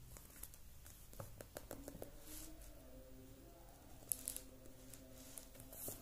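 Faint handling sounds of a paperback textbook being held and shifted: soft rustles and a few light clicks over quiet room tone.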